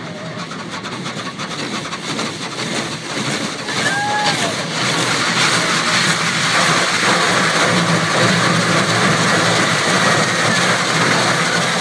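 Automatic car wash heard from inside the vehicle: water spray and rotating wash brushes hitting and scrubbing the windshield, a steady rushing noise that grows louder about four seconds in as the brushes come over the glass.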